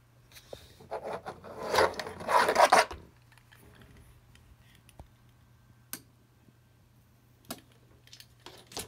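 Rough scraping and rubbing for about two seconds, starting about a second in, then a few faint clicks over a low steady hum.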